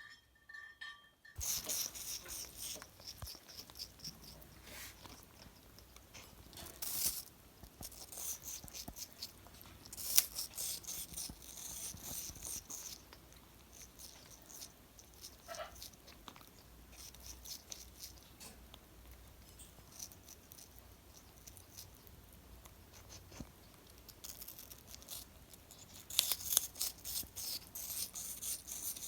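A parrot eating close up: its beak crunching and picking at soft food, a dense run of small clicks and crackles starting about a second in, with a few louder bursts.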